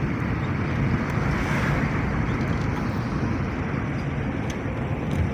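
A vehicle driving along a road: a steady low rumble of engine and road noise.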